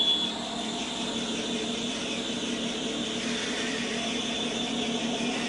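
Twin Yamaha 225 hp four-stroke outboard engines idling steadily, a low even hum with a high hiss above it. A brief sharp click sounds right at the start.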